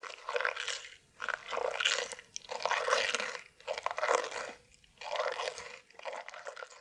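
A rabbit chewing crisp food, a bite-by-bite crunching in about six bouts separated by short pauses.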